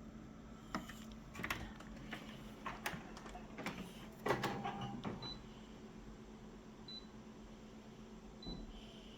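A quick run of sharp clicks and knocks from objects being handled, the loudest about four seconds in, then a few faint short high beeps spaced over the last few seconds.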